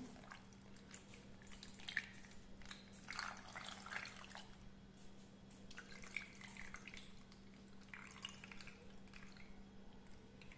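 Thin watery tomato sauce poured slowly from a bowl into a pot of stuffed peppers: faint trickling and dripping in a few short spells, over a faint steady hum.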